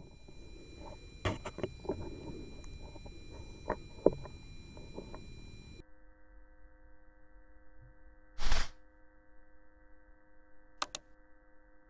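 A scoped rifle fires once about eight and a half seconds in, a single loud, short report picked up by a scope-mounted camera. Scattered clicks and handling knocks come before it, and two quick clicks follow near the end.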